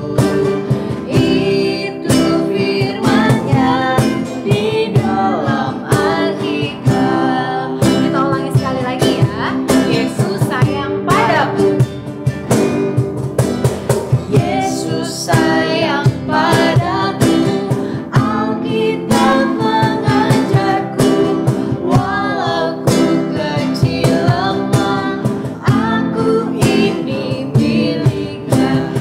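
A worship song sung by a young man and a young woman, accompanied by two strummed acoustic guitars.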